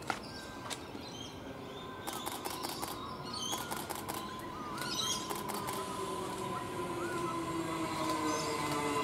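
Queensland Rail NGR electric multiple unit approaching, its rail noise and motor whine growing steadily louder. Near the end the whine drops in pitch.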